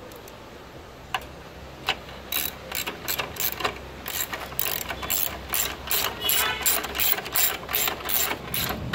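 Hand socket ratchet on a long extension clicking as it turns a radiator support bracket bolt. Two lone clicks come first, then a steady run of about three clicks a second from about two seconds in.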